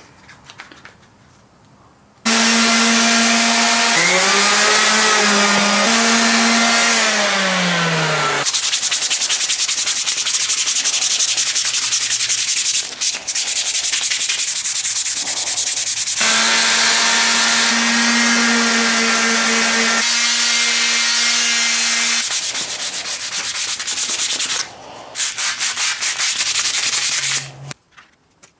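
Sandpaper sanding a round wooden mallet head cut from a baseball bat's barrel: a loud, steady scratchy hiss in two long spells, with a humming tone underneath that sags in pitch now and then.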